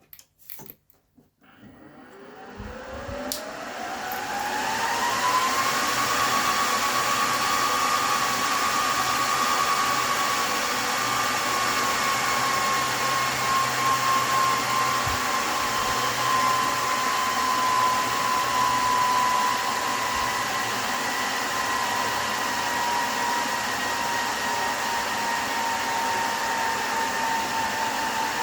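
NetApp FAS2040 storage server's cooling fans spinning up at power-on. A few clicks come first, then a whirring whine that rises in pitch for about four seconds and settles into a loud, steady rush of air, with the whine slowly dropping in pitch.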